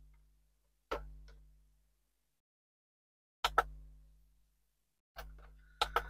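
A white UV resin curing lamp and silicone molds being set down and shifted on a worktable: a few sharp knocks, one about a second in, two in quick succession midway and two more near the end, each fading out over about a second.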